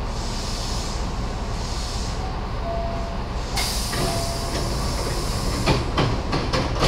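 Nose Electric Railway 7200 series electric train running, a steady rumble. A sudden hiss sets in about halfway through, and a quick run of sharp clacks follows near the end.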